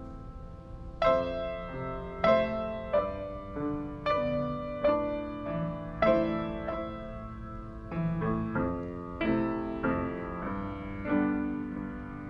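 Solo piano playing a slow, quiet piece: chords and melody notes struck about every half second to a second and left to ring, with a held chord fading before the playing picks up about a second in.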